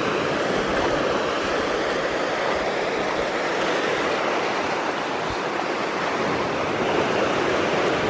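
Ocean surf breaking and washing over shoreline rocks: a steady rush of water with no single crash standing out.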